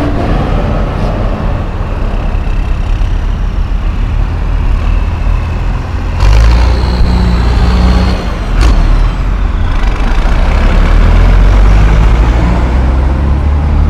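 Tractor diesel engines running as tractors drive past one after another, growing louder about six seconds in as one passes close by. A short sharp click comes about nine seconds in.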